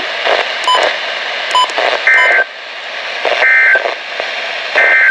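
NOAA Weather Radio hiss with a few sharp clicks, then three short bursts of warbling two-tone SAME digital data, about a second apart: the EAS end-of-message code that closes a warning.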